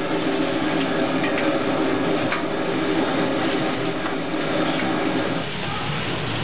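Steady machine-like whirring of a kitchen, with a few faint knocks as noodle dough is worked on a floured counter. The lower part of the whir drops away about five seconds in.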